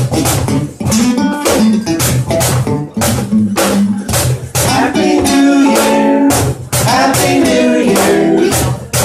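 Acoustic guitar strummed in a steady rhythm, with a man's singing voice joining about five seconds in.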